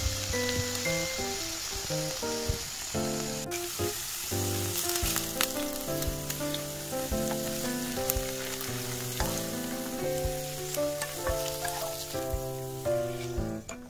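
Shredded potato pancakes sizzling in oil in a nonstick frying pan, with a few clicks and scrapes of a spatula, over background keyboard music. The sizzle thins out near the end as the pan is emptied.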